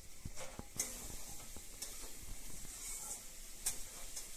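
Fried fish pieces and spices sizzling in oil in a pan, with a steel spoon scraping and clinking against the pan a few times as they are stirred.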